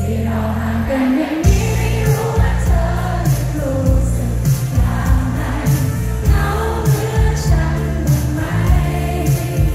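Live pop band with a singer, heard loud through a large concert PA from among the audience: a sung melody over electric guitar, bass and drums. The bass and drums drop out for a moment about a second in, then come back.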